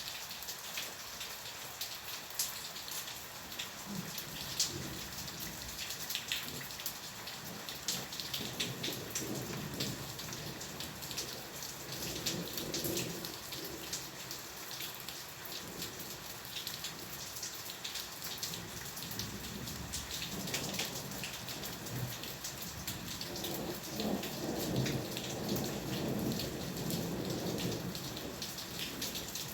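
Steady rain with close pattering drops. Thunder rumbles low twice, once about a third of the way in and again, longer and stronger, through the last third.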